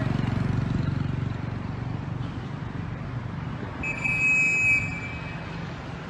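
Street traffic, with a motorbike engine running close by at the start. About two-thirds of the way through, a steady high-pitched tone sounds for about a second, loud over the traffic.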